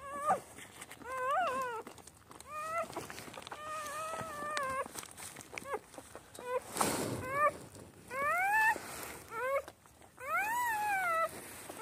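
Newborn puppies crying in a run of about ten short, high squeals that rise and fall in pitch. There is a brief rustle about seven seconds in.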